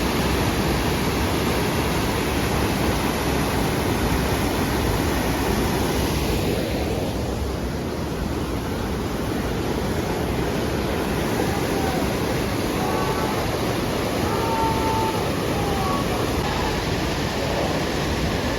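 Steady rush of a waterfall, with a few faint short high calls above it in the second half.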